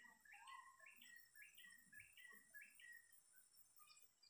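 Faint bird calling, a short note repeated about twice a second, over a steady thin high whine.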